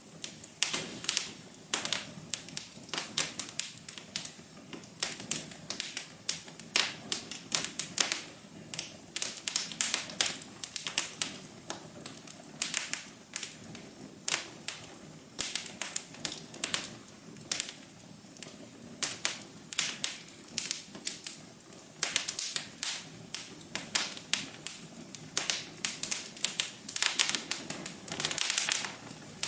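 Wood fire in a fireplace crackling: a continuous run of irregular sharp snaps and pops, several a second and sometimes in quick clusters, over a soft steady hum.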